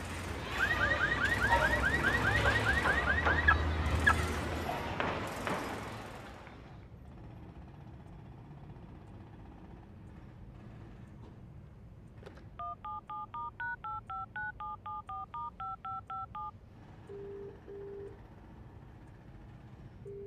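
Street noise with a low traffic rumble and a car alarm chirping in rapid repeats, fading out after about six seconds. About twelve seconds in, a touch-tone telephone dials a long number, about sixteen quick beeps. Then a double-pulse ringing tone sounds twice in the receiver, about three seconds apart.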